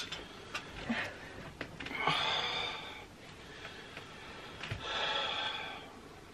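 A person breathing out heavily twice through nose or mouth, about a second each, after a few small clicks.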